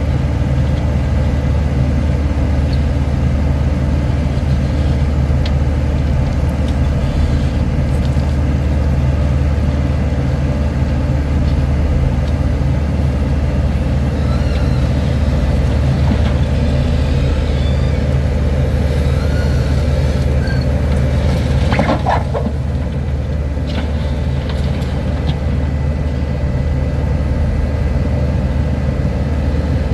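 Heavy vehicle engine running steadily with a deep, even drone. A brief squeal about two-thirds of the way in.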